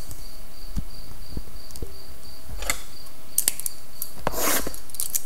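Brief rustles and scrapes of hands moving about a tabletop, about three of them in the second half. Under them runs a faint high-pitched tone that pulses on and off.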